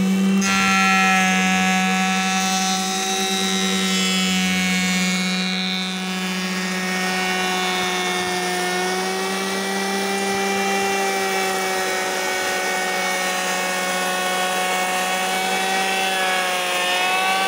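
Makita KP312 wide electric hand planer running steadily as it is pushed along a wooden beam, cutting the surface: a loud, steady motor-and-cutterhead whine with many tones stacked above it. Its pitch begins to drop right at the end as it winds down.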